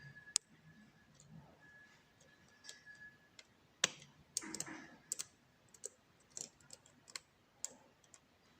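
Scattered light clicks and ticks of lock picks working the pins of a challenge lock held in a vice, uneven and irregularly spaced. A faint steady high tone runs underneath and stops about three seconds in.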